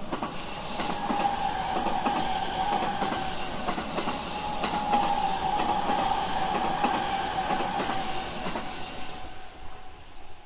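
Electric limited-express train passing through a station at speed, with rapid wheel clicks over rail joints, a steady whine and a rushing of air and wheels. The sound fades away near the end as the last car goes by.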